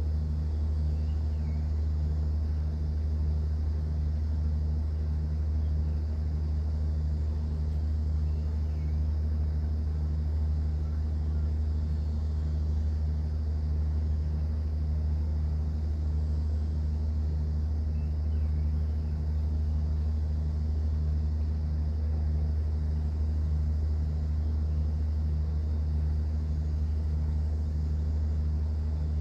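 Cruise boat's engine droning steadily in a low, even hum, with a faint regular throb running through it.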